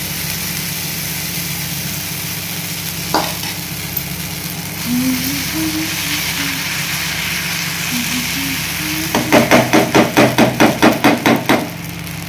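Chakuli pitha batter sizzling with a steady hiss on a hot non-stick pan as it is poured and spread, with a single click about three seconds in. Near the end comes a fast run of rhythmic strokes, about six a second, lasting a couple of seconds.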